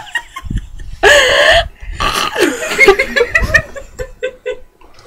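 A girl gagging and retching on a mouthful of dry ground cinnamon, with a loud throaty retch about a second in and more broken choking sounds after it.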